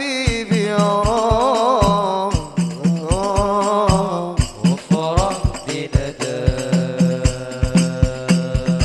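Sholawat, an Islamic devotional song praising the Prophet: a voice sings a wavering, ornamented melody over frame drums keeping a steady beat.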